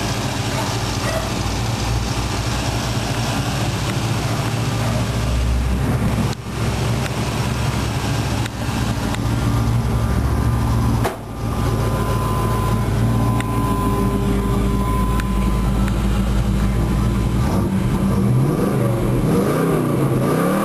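V8 engine of a 1995 Chevy S-10 pickup running at a steady idle, dropping out briefly twice, then revving up and down near the end.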